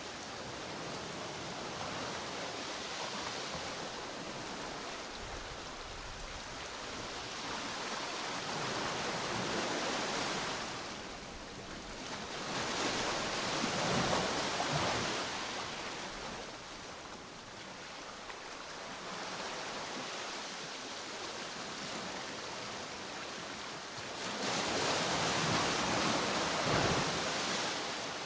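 Steady rushing noise that swells louder and fades again three times: about nine seconds in, from about twelve to fifteen seconds, and near the end.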